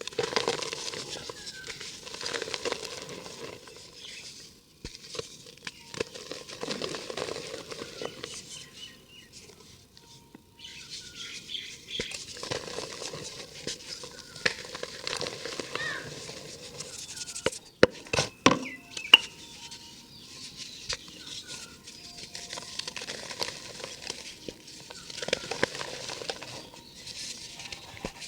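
Dry cement and dirt being crumbled by hand, with an irregular gritty crackling and pattering. A few sharp cracks come together about two-thirds of the way through.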